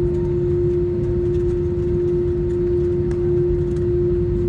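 Steady cabin noise of an Airbus A321 taxiing after landing: a low rumble with a steady hum running through it, heard inside the cabin.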